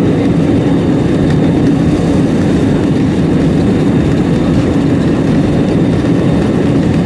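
Jet airliner's engines and airframe heard from inside the cabin while the plane rolls along the ground: a loud, steady rumble with a faint, steady high whine above it.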